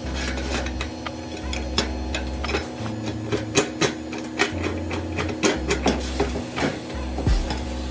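Irregular sharp knocks and taps, like hand work on metal, growing denser and louder about halfway through. Background music with a steady bass line plays under them.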